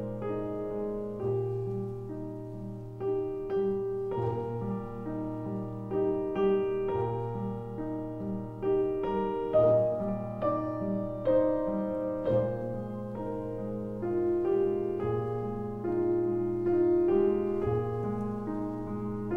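Background piano music: a gentle melody of single notes over long held low notes.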